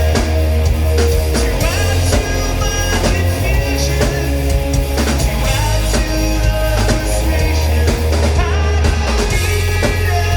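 Rock band playing live at full volume: drum kit, bass and electric guitars together, loud and dense throughout.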